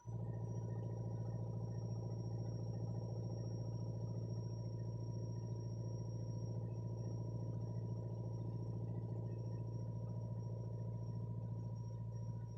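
Hitachi backhoe engine running steadily, a constant low hum that cuts in abruptly and holds unchanged.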